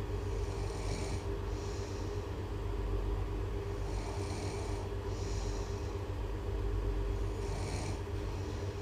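Loud, steady snoring, as a repeating sound effect: a continuous low rumble, with a hissing breath coming in pairs about every three and a half seconds.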